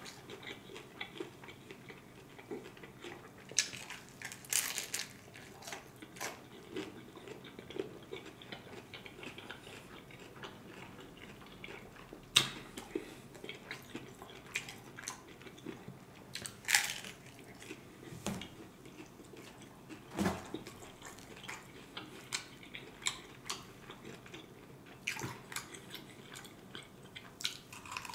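A person chewing crisp hard-shell tacos, with sharp crunches of the fried corn shell every few seconds between quieter chewing, and a louder bite near the end.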